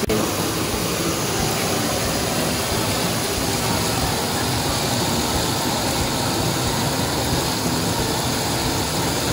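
Steady rushing noise of a foam machine running and spraying bubble foam into a wading pool, even and unchanging throughout.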